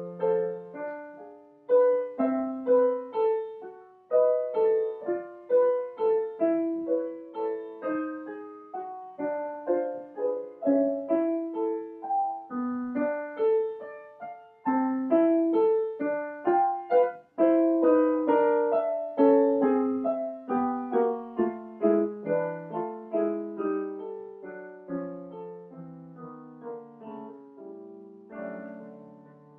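Solo grand piano playing a continuous passage of notes and chords, each note dying away after it is struck. The playing grows softer over the last several seconds.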